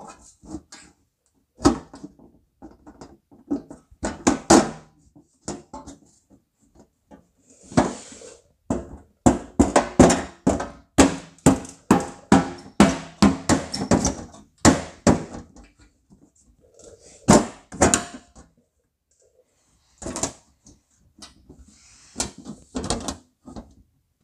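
Steel quarter panel being slid into position on the body and clamped: irregular knocks and clunks of sheet metal and clamps, with a fast run of sharp taps through the middle.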